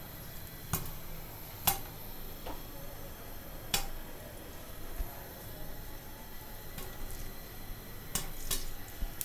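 Popcorn kernels popping in hot oil in a pan under a glass lid: about eight sharp, irregular pops, the loudest near two and four seconds in, over a faint sizzle of the oil.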